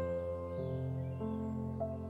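Soft background music: held chords over a steady bass note, with a new note coming in about every half second.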